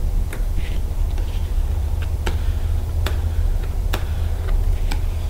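Several sharp plastic clicks, spread about a second apart, as a hard squeegee works vinyl decal onto a plastic ATV fender, over a steady low hum.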